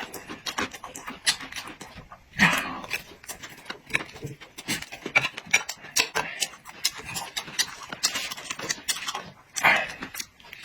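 Close-miked eating: wet chewing with many small mouth clicks and smacks, and two louder, longer bursts about two seconds in and near the end.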